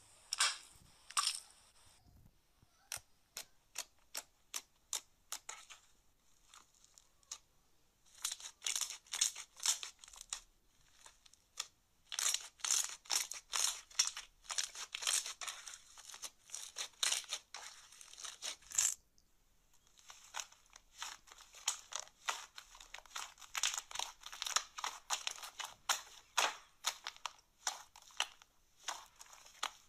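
Slime being squeezed and pressed by hand, giving rapid crackling clicks in spells of a few seconds with short pauses between them.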